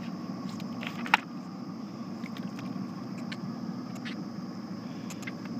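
A boat's motor running with a steady low rumble, and one sharp knock about a second in.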